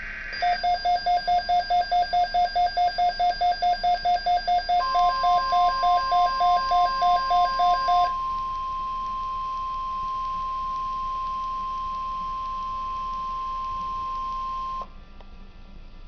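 Midland weather radio alerting to a NOAA Weather Radio broadcast: after the tail of a digital SAME header burst, the radio sounds a rapid pulsing alert beep, about three to four beeps a second. About five seconds in, the broadcast's steady single-pitch warning alarm tone begins. The beeping stops about eight seconds in, and the alarm tone holds until it cuts off suddenly near the end.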